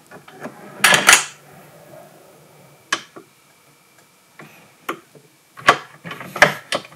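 Small plywood cutting-board tray run in and out on metal drawer slides: a light rolling rattle with several sharp metallic clacks as the slides hit their stops, the loudest about a second in.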